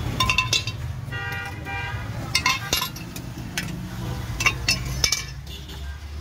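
Steel ladle clinking against metal water pots and a small metal cup as spiced panipuri water is scooped and poured, several sharp clinks, over a steady low rumble of street traffic. A vehicle horn sounds briefly about a second in.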